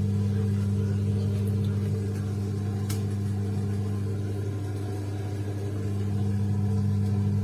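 Toshiba semi-automatic washing machine's drain pump running with a steady low electric hum as it pumps the wash water out of the wash tub.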